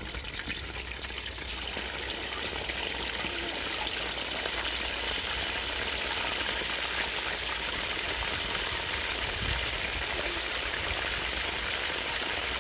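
Chicken leg pieces deep-frying in hot oil on their second fry, a dense steady sizzle that builds over the first couple of seconds and then holds.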